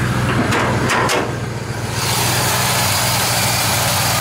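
V8 engine of a 1958 Chevrolet half-ton pickup idling steadily. About two seconds in, a steady rushing hiss joins the hum.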